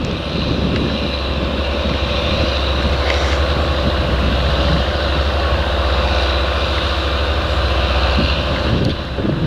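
Fendt 930 Vario tractor's six-cylinder diesel engine running steadily under load as it pulls a reversible plough through heavy soil.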